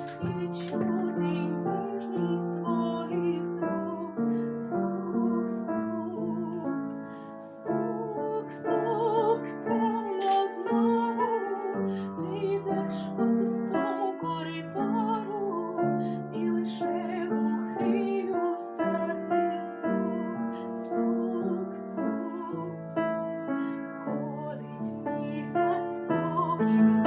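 A woman singing a song with piano accompaniment, the piano holding long chords beneath her voice.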